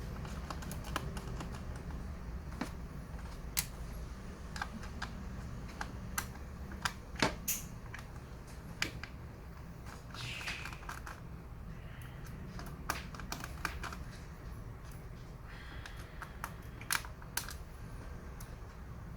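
Scattered small clicks and ticks of a ThinkPad T410s laptop being taken apart by hand: screws and plastic and metal parts being handled, with brief scraping rustles about ten and fifteen seconds in, over a steady low hum.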